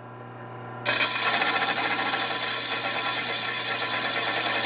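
Electric meat slicer running with a low motor hum; about a second in, its spinning stainless steel blade is pressed against the built-in sharpener's angled grinding stone. The result is a sudden, loud, steady grinding with high ringing tones as the stone puts the edge on the blade.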